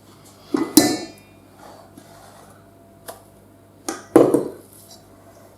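Kitchen utensils and dishes clattering as they are handled and set down: two knocks with a short ringing clink about a second in, a sharp click near the middle, and two louder knocks about four seconds in.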